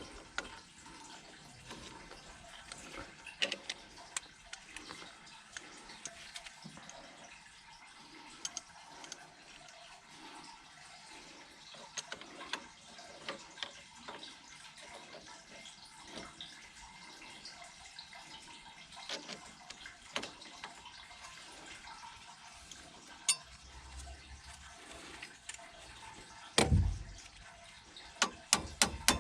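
Water running steadily, with scattered clicks and knocks of work; near the end a heavy thump, then a run of evenly spaced taps.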